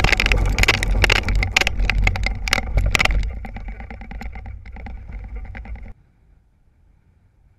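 Kite buggy rolling fast over hard, gravelly dirt, heard from a camera mounted on the buggy: wind buffeting the microphone over a low rumble, with rattles and clicks from the wheels and frame. It quietens after about three seconds as the buggy slides to a stop in its own dust, and cuts off abruptly at about six seconds to a faint outdoor background.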